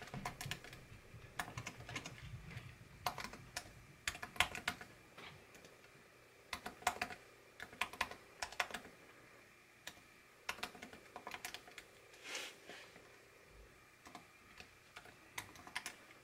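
Typing on a computer keyboard: short irregular runs of key clicks with brief pauses between them.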